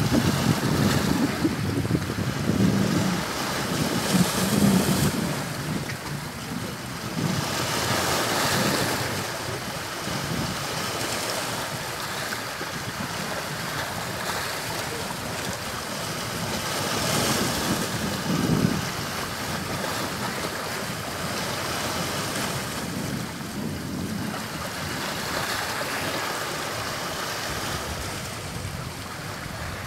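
Sea waves washing onto the shore, surging and easing off in slow swells every several seconds. Low wind rumble on the microphone during the first few seconds.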